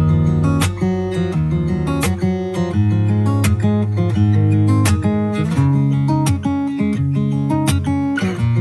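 Background pop music: an instrumental passage led by strummed acoustic guitar over a steady beat.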